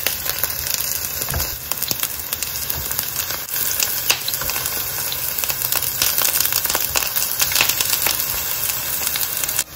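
Strips of eggplant frying in hot vegetable oil in a pan: a steady sizzle with dense crackling, which drops off abruptly just before the end.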